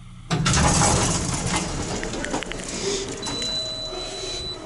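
Vintage Otis elevator doors opening after the car stops: a sudden rush of noise about a third of a second in that slowly fades, with a faint steady high tone near the end.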